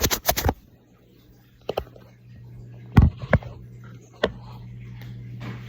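Handling noise of a phone camera being moved and set at a new angle: a quick run of knocks at the start, then scattered single bumps and clicks, over a steady low hum.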